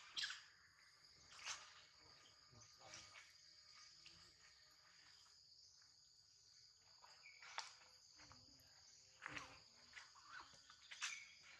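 Faint, steady high-pitched insect drone, with a few short clicks scattered through it.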